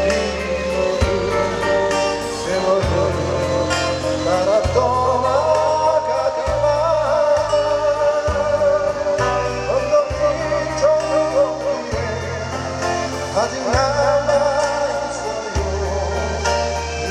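Live band played through PA speakers: a voice singing a melody over strummed acoustic guitars, with sustained bass notes and a steady beat.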